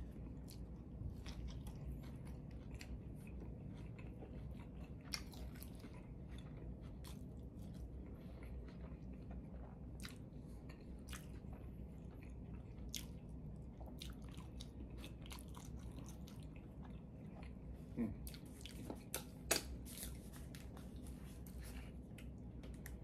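Close-miked chewing and biting of a cheeseburger and steak fries: many small wet mouth clicks and soft crunches over a low steady hum, with a few sharper bites near the end.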